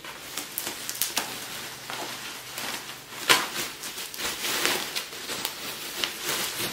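Bubble-wrap packaging crinkling and rustling as it is handled around a chair, with many small sharp crackles and one louder crackle about halfway through.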